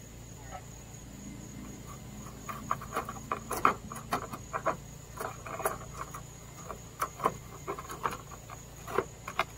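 Irregular clicks and light taps from hands working a perforated metal gutter guard at the gutter's lip, starting about two and a half seconds in. Behind them, a steady high chirring of crickets.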